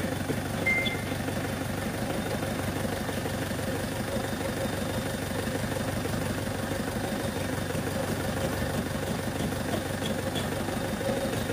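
Isuzu 4JX1 four-cylinder diesel engine idling steadily.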